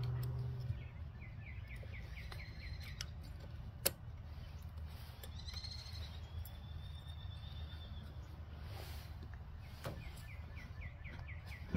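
Birds chirping outdoors, with runs of quick chirps and a higher trill in the middle, over a steady low rumble. A few sharp clicks are scattered through it, the loudest about four seconds in.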